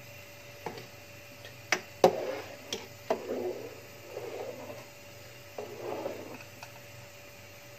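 A spoon and pot handled while spices are stirred into meat and water: a few sharp taps and clicks, the loudest about two seconds in, then three spells of soft scraping and rubbing. A faint steady hum runs underneath.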